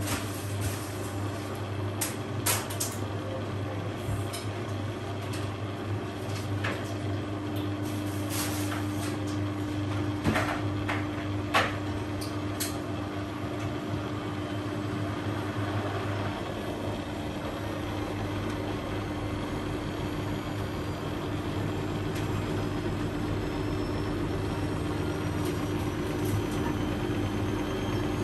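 Beko front-loading washing machine with a full load, its drum speeding up in the interim spin after the wash: a steady motor hum, with a faint whine that rises in pitch from about halfway as the drum gains speed. A few sharp clicks and knocks come from the load in the first half. The spin keeps building without suds lock.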